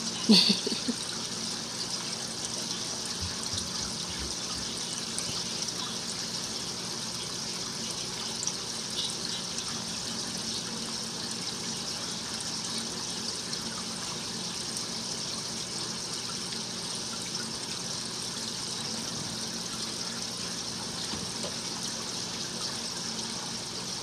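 Aquarium air stone bubbling steadily, a continuous fizzing hiss of fine bubbles rising through the tank water, over a low steady hum. A brief, louder sound comes just after the start.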